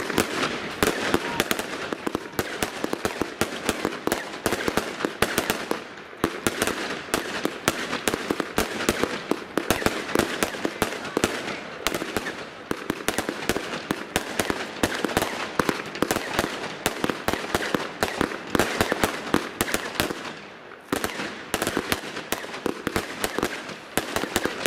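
Fireworks display: a dense, continuous barrage of launches, bangs and crackles, many per second, from several aerial fireworks bursting at once. There are brief lulls about six seconds in and again near the end.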